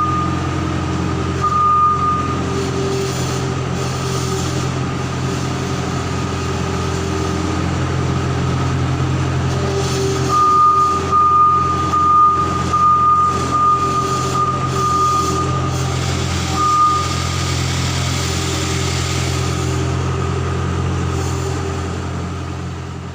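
Skid steer loader's diesel engine running steadily, with its reversing alarm beeping: a couple of beeps at the start and a run of beeps about halfway through. The sound fades near the end.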